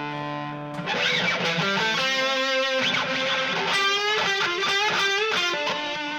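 Electric guitar played through a TC Electronic Flashback X4 delay pedal into amplifiers: a held chord cuts off under a second in, then a run of picked single notes and chords follows, several notes wavering in pitch, with repeating echoes of the notes.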